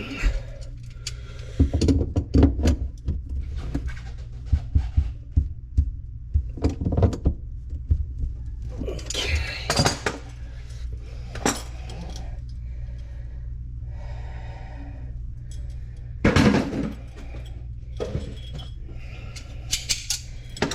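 Irregular knocks, clunks and clinks of plumbing parts and tools being handled under a kitchen sink, with a brief scraping sound partway through and a low steady hum underneath.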